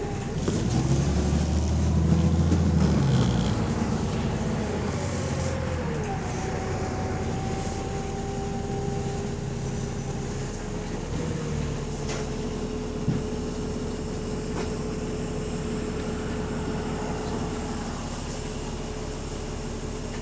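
Bus engine and drivetrain running under way: the engine grows louder over the first few seconds, then a whine slides down in pitch and settles into a steady tone. The bus has an exhaust leak.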